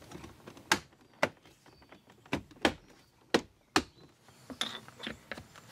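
Plastic interior trim pieces on a Nissan 240SX centre console snapping and clicking as they are pressed into place: about six sharp clicks over a few seconds, followed by fainter handling sounds near the end.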